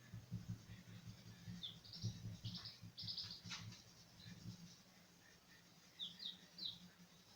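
Faint bird chirps: clusters of short high notes about two to three and a half seconds in and again about six seconds in, over a faint low rustle.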